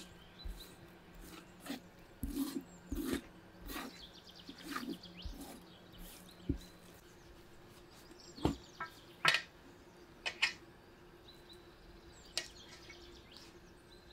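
Light clicks and knocks of a knife and hands working raw ducks on a metal tray as the skin is scored and the birds are handled, with several louder knocks in the second half. Birds chirp faintly in the background.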